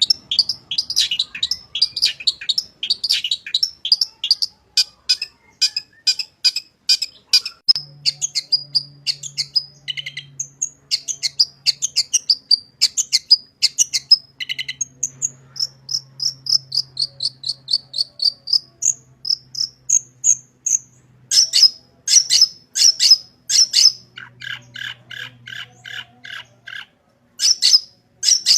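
A long-tailed shrike (cendet) singing continuously: a rapid, varied stream of sharp chirps and trills, full of the imitated calls of other birds that keepers call isian, with a run of evenly repeated notes near the end.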